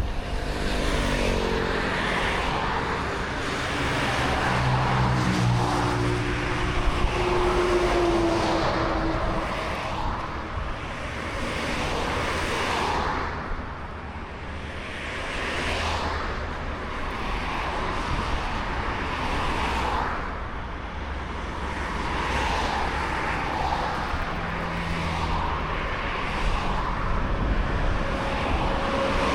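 Road traffic noise, with a passing vehicle whose engine tone falls in pitch over the first several seconds.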